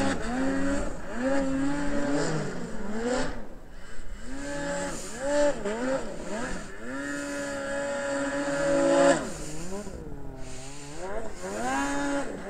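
Two-stroke mountain snowmobile engine revving up and down in short throttle blips, holding a steady high rev for a few seconds past the middle, then backing off and running quieter with more blips near the end.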